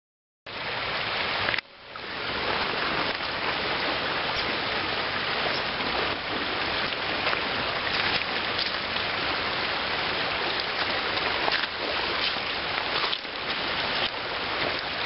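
Shallow river water rushing over a gravel riffle, a steady noisy rush that starts about half a second in.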